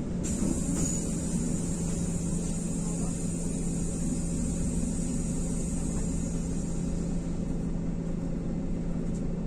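Steady rumble of an IVECO Crossway LE bus's Cursor 9 six-cylinder diesel engine, heard from inside the bus, with a constant low hum over it.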